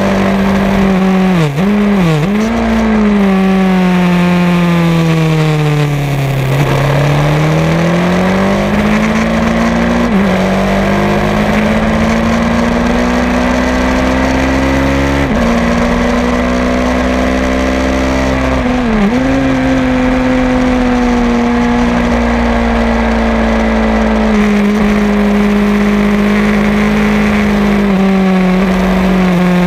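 Racing motorcycle engine heard onboard through a lap, its note rising and falling with the throttle and gear changes over a steady rush of wind noise. The note dips sharply a couple of times near the start, falls away for several seconds as the bike slows, then climbs again. It breaks briefly around the middle and holds fairly even toward the end.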